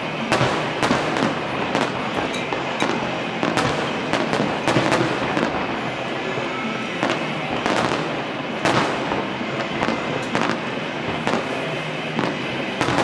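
Fireworks display: sharp shell bursts about once a second over a continuous dense crackling.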